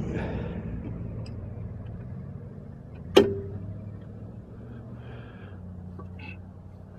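Craftsman snowblower's small single-cylinder engine running on a cold start, a steady hum that slowly gets quieter. One sharp metallic click with a short ring comes about three seconds in.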